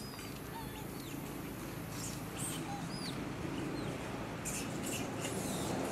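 Outdoor ambience: a steady hiss with a few faint, high arched chirps and short rustles about two seconds in and again near the end.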